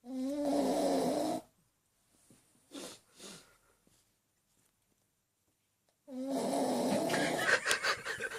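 Snoring: two long pitched snores about six seconds apart, with two short soft breaths between them. The second snore ends in a rattle.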